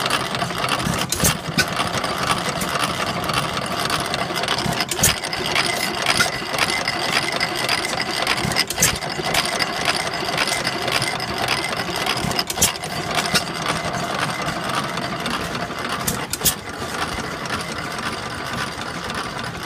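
Horizontal Armstrong Quam hit-and-miss gas engine running: its gear-driven valve gear clatters steadily, with sharp knocks at irregular intervals.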